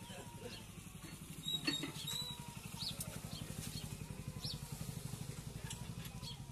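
Tractor diesel engine idling with a steady low, rapidly pulsing hum. A few short high chirps from birds sound over it.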